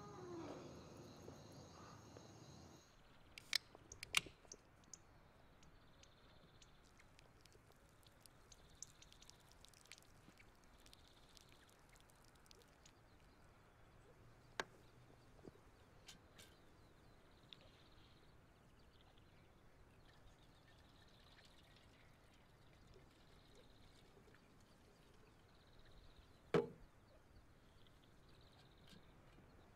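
Mostly near silence with a faint outdoor background, as a drink is handled at a wooden table: two sharp clicks about four seconds in, sparse small ticks and faint pouring, then one louder knock near the end as the bottle is set down on the wood. An animal call dies away in the first second.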